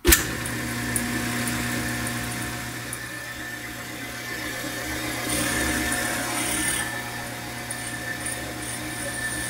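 Taig micro lathe switched on, its motor and spindle starting suddenly and then running with a steady hum while a light facing cut is taken across the end of a blank arbor. The sound swells for a moment about five seconds in.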